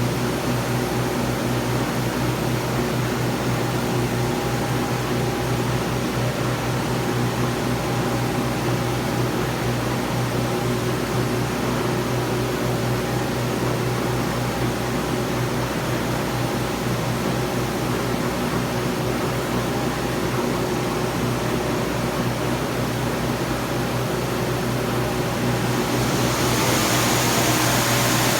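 Large industrial sewing machine running with a steady hum and whir. About 26 seconds in, the sound grows louder and hissier.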